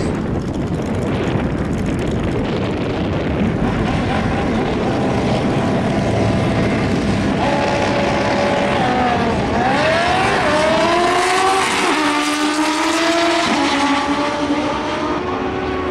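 Two Top Bike drag-racing motorcycles at the start line with a loud, steady engine rumble, then launching partway through and accelerating down the strip. The engine pitch climbs and drops back at each gear shift, twice or so, near the end.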